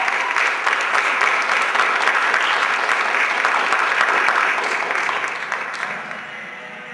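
Audience applauding in a hall, the clapping dying away over the last couple of seconds.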